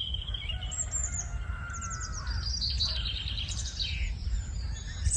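Several small birds chirping and trilling in quick, overlapping phrases, over a low steady rumble.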